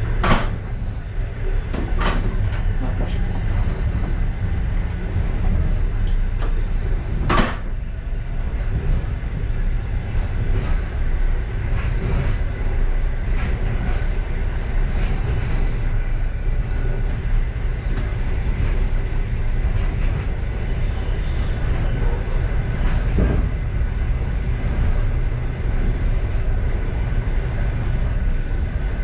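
Passenger railway car running at speed, a steady low rumble from the wheels and bogies heard inside the car, with a few sharp knocks from the car body, the loudest about seven seconds in.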